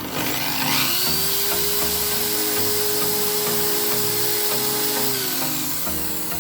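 An electric power tool runs up with a rising whine in the first second, runs steadily with a loud hissing grind, then winds down and stops near the end. Background music with a steady beat plays underneath.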